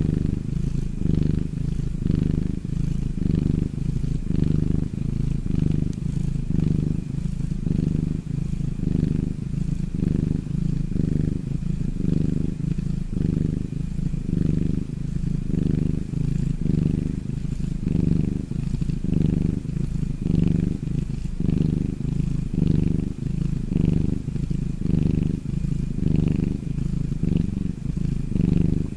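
Domestic cat snoring: a low rumble that swells and fades in a steady rhythm, over and over.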